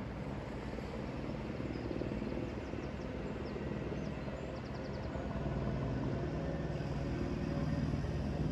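Steady engine drone with a low hum that grows louder about five seconds in, over a constant rushing background. A few faint high chirps come through in the middle.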